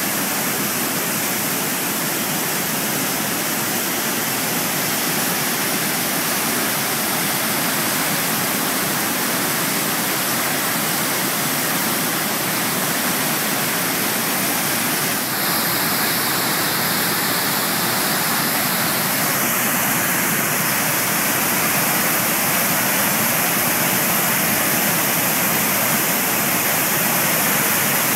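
Athabasca Falls: the Athabasca River pouring over the rock ledges and down into the gorge, a loud, steady rush of white water.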